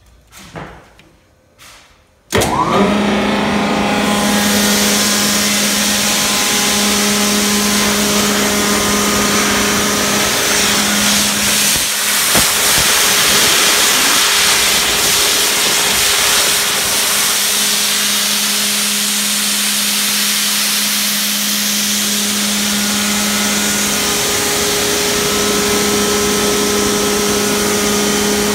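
Mattei ERC 1022L 30 hp rotary vane air compressor starting up: after a few faint clicks it comes on abruptly about two seconds in, then runs steadily with a loud hum over a rushing noise.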